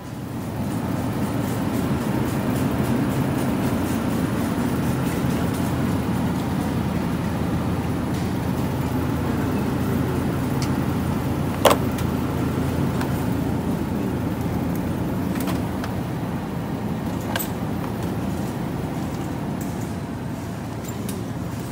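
Car driving: a steady low rumble of road and engine noise, with one sharp click about halfway through.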